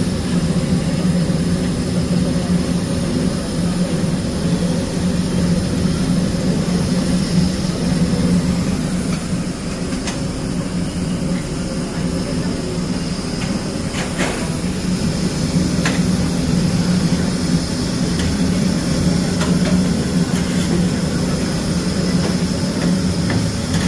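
A dense chorus of many frogs calling together, a steady low-pitched trilling din with no pauses, with a few faint clicks in the middle.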